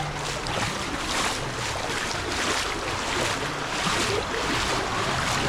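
Rushing, splashing water with repeated surges of hiss, with some wind on the microphone.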